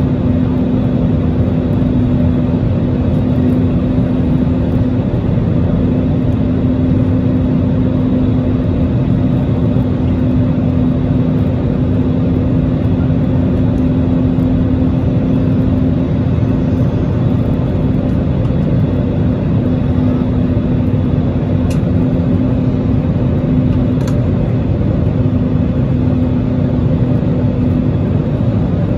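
Airbus A320neo cabin noise heard from a window seat by the wing: the steady rush of the CFM LEAP-1A engines and airflow, with a steady low hum over it.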